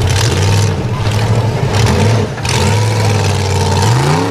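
Off-road vehicle engine running under load with a steady low drone, revving up with a rising pitch near the end.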